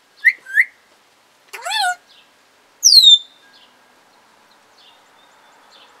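African grey parrot whistling and chirping: two short chirps, then a quick warbling whistle, then a loud whistle sliding down in pitch about three seconds in.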